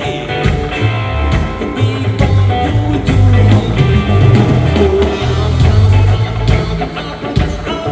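Rock band playing live: electric guitar over a pulsing bass line and drum kit.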